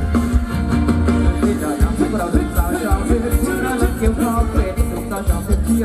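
Live band playing Thai ramwong dance music with a steady beat; a singer's voice comes in about two seconds in.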